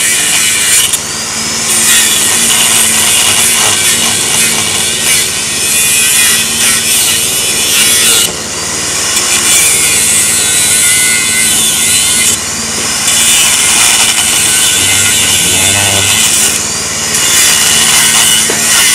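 Power saw cutting timber in several long passes, with short breaks between the cuts.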